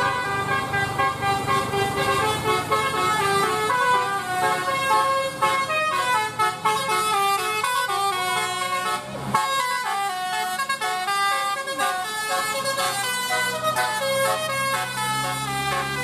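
Bus telolet horn, a multi-trumpet musical air horn, playing quick melodic runs of short notes with several tones sounding together. It breaks off briefly about nine seconds in, then goes on playing.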